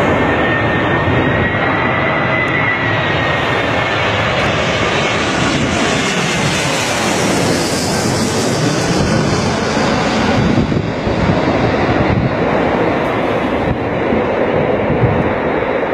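Airliner's engines running loud and steady, with a thin high whine over the first few seconds and a hiss that swells in the middle.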